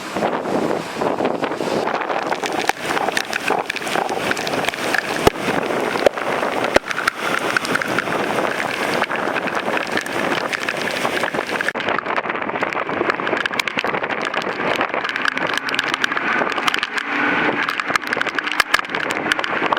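Tropical-storm wind rushing and buffeting the microphone, with many sharp crackles and taps.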